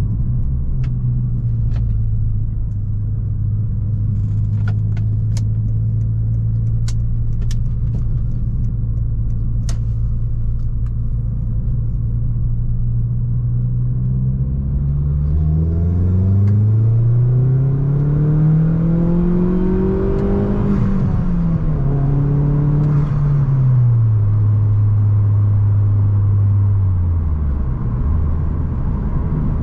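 Opel Astra G Bertone's turbocharged 2.0-litre four-cylinder engine, heard on the move. It holds a steady engine note for the first half, with a few sharp clicks in the first ten seconds. It then revs up under acceleration, drops pitch at a gear change, holds again, and the revs fall away near the end.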